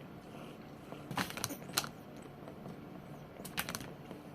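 A few light clicks and taps of a plastic toy baby bottle and doll being handled while the doll is fed. They come in two short clusters, about a second in and again near the end.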